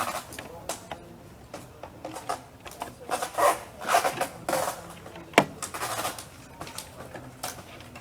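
Scattered rustling and scraping of materials being handled, with a sharp knock about five and a half seconds in.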